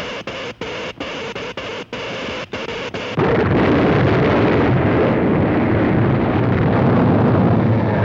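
Cartoon sound effects: a steady noise that cuts out briefly about twice a second, then, about three seconds in, a sudden loud, heavy rumble like an explosion or earthquake that keeps going.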